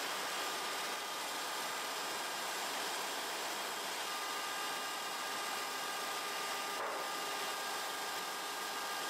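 Steady engine-room background noise: an even hiss with a few faint, high, steady tones and no distinct events.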